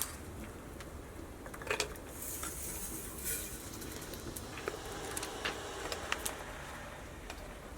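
Kitchen utensils and dishes clinking and knocking: a scatter of light clicks and clanks, with a short hiss about two seconds in.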